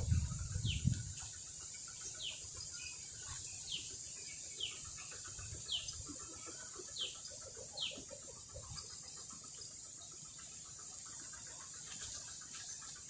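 A bird calling over and over, short quickly falling notes about once a second, that stop about two-thirds of the way through, over a steady high hiss. A low rumble is heard in the first second.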